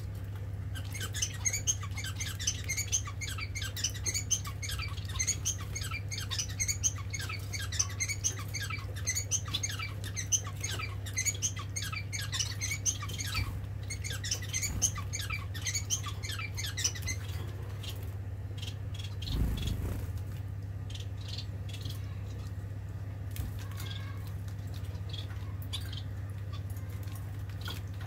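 Society finches (Bengalese finches) giving short high chirps in quick succession, several a second, thinning to scattered chirps about two-thirds of the way through. A steady low hum from the pet water fountain's pump runs underneath, with one low thud about two-thirds through.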